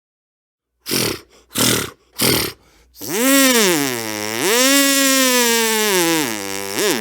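A man's vocal sound effect: three short breathy bursts, then a loud, sustained throaty growl whose pitch swoops down and up, with two quick upward blips near the end.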